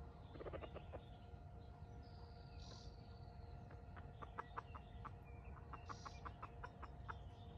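Red junglefowl clucking softly. There is a short burst of low clucks just after the start, then a long run of quick, clicking clucks from about four seconds in.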